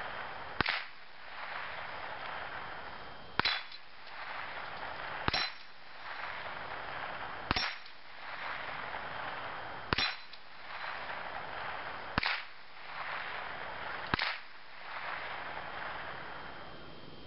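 Seven .22 rifle shots from a Remington Nylon 66 semi-automatic, about two seconds apart, each a sharp crack with the clang of the bullet striking a steel dueling-tree plate; after several of them the plate rings briefly on a high note. A hiss swells and fades between the shots.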